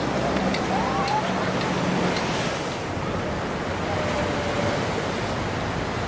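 Ocean surf breaking and washing up on a beach: a steady rushing hiss of waves.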